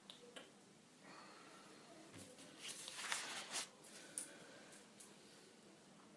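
Near silence: quiet room tone with faint rustling and a few soft clicks, the rustling loudest about three seconds in.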